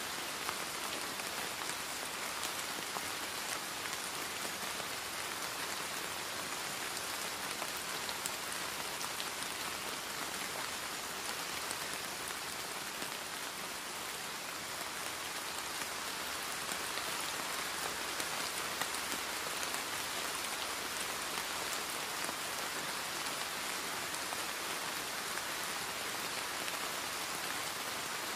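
Steady rain: an even hiss with a fine patter of drops, unchanging throughout.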